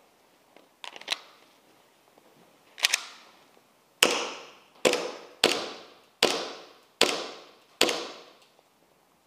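Airsoft gun firing: a couple of lighter cracks, then a steady string of six sharp shots about 0.8 s apart, each ringing out briefly.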